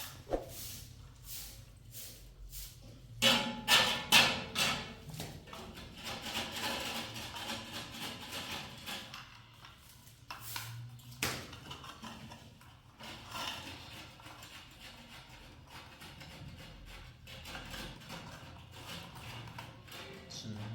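Intermittent knocks and clatter of hard objects, with a quick run of loud sharp knocks about three seconds in and a single sharp knock near the middle.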